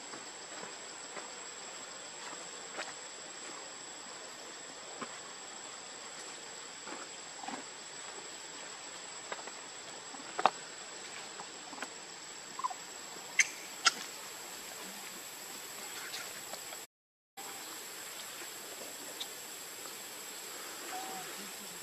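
Outdoor ambience: a steady high insect whine over a faint hiss, dotted with short clicks and a few brief high squeaks, the loudest a little past the middle. The sound cuts out for a moment about three-quarters through.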